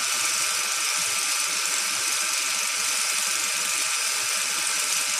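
A steady hiss like static or white noise, even and unchanging, that cuts off abruptly at the end.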